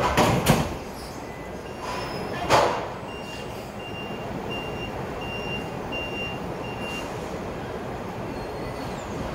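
Toyota forklift's reversing alarm beeping about twice a second as it backs away with a pallet, after two loud knocks, the first right at the start and the second about two and a half seconds in, over a steady machine hum.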